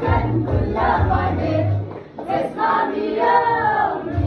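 Music with several voices singing together over a pulsing bass beat; the bass drops out about halfway through and comes back near the end.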